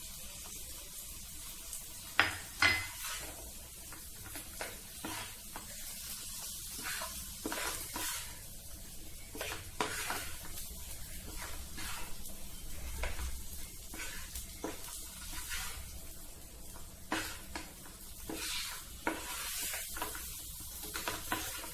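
Wooden spatula stirring and scraping lemon pieces coated in masala and crushed peanuts around a nonstick pan in uneven strokes, over a light sizzle of hot oil. A couple of sharp knocks stand out about two seconds in.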